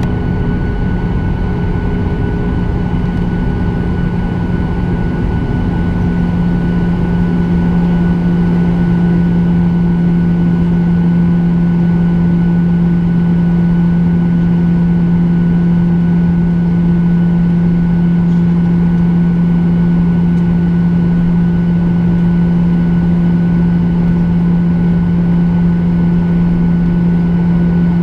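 Boeing 737-800's CFM56-7B jet engines running at low power on the ground, heard from inside the cabin as a steady drone with a low hum and a faint high whine. The hum grows a little louder about six seconds in.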